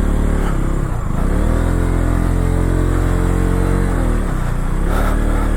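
Motorcycle engine running under way, its revs dipping and picking back up about a second in and again around four seconds, with a couple of short knocks near the end.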